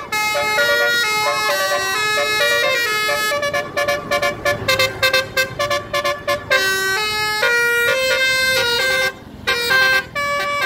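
Indonesian bus 'telolet' horn, a set of multi-tone air horns, playing a quick melody of stepped notes. A run of short, repeated staccato notes comes in the middle, and the horn breaks off briefly about nine seconds in before the tune resumes.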